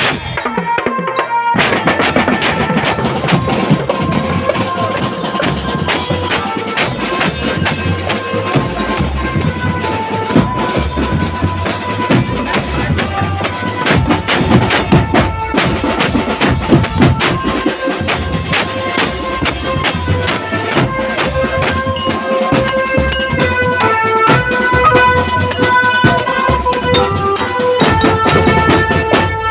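A marching drum band playing: drums beat a steady, dense rhythm under a melody of held notes.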